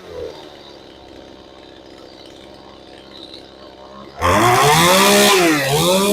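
Stihl MS181 two-stroke chainsaw engine idling steadily on its newly fitted carburettor. About four seconds in it is revved hard, dips briefly, then revs up again.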